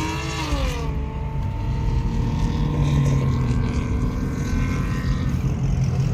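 Car engine whose pitch climbs and then drops about a second in, then holds a steady drone at nearly constant speed, heard from inside a moving car.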